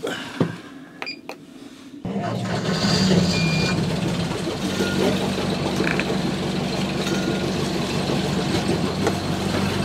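The sailboat's inboard engine starts about two seconds in and then runs steadily at idle.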